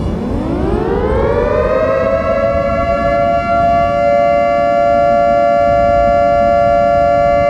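Civil-defense siren winding up: its pitch rises steeply over the first two to three seconds, then holds as a steady, loud two-tone wail over a low rumble.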